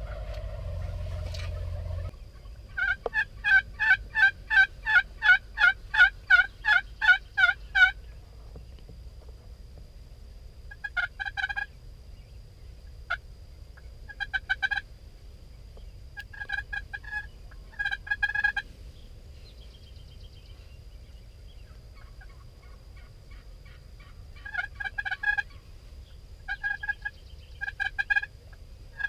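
Wild turkeys calling: a long, even run of about twenty yelps, roughly four a second, then several short rattling bursts of gobbling. A steady low rumble cuts off about two seconds in.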